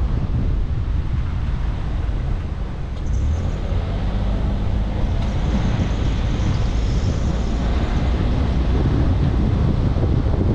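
Steady low rumble of a car driving, road and tyre noise with wind buffeting the dashcam's microphone.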